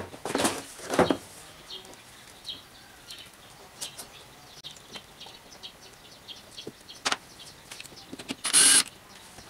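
Hands handling a small motorcycle battery and its wiring connectors in a scooter's plastic battery compartment: rustling in the first second, then scattered light clicks and knocks, and a louder harsh noise of under half a second near the end.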